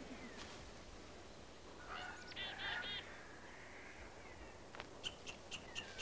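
Faint animal calls: a bout of rapid, nasal call notes about two to three seconds in, then a steady series of sharp ticks, about four a second, from about five seconds in.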